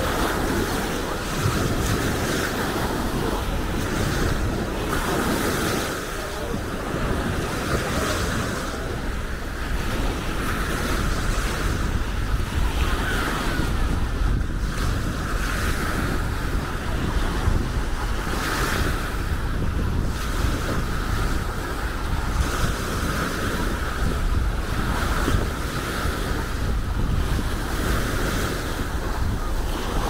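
Baltic Sea waves washing onto a sandy beach, a steady surf, with wind rumbling on the microphone.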